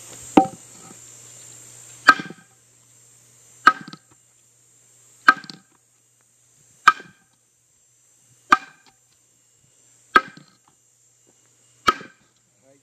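Steady chopping at an old cashew tree stump and its roots with a metal hand tool: eight sharp blows about every second and a half, each with a brief metallic ring. A steady high insect buzz, likely a cicada, runs underneath.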